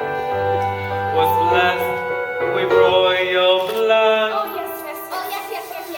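Stage-musical song: voices singing a melody of long, held notes over instrumental accompaniment.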